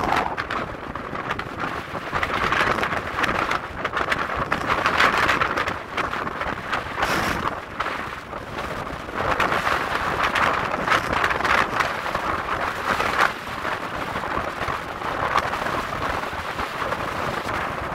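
Strong wind buffeting the microphone, a rough rushing noise that swells and eases in gusts every few seconds.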